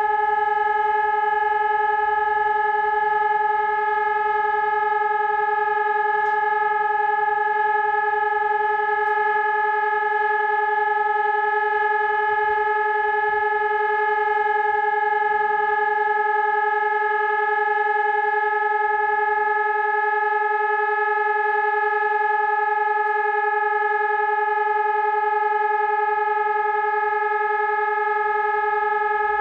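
Telegrafia Pavian 1800 electronic siren sounding a steady, unbroken tone: the Czech monthly siren test signal.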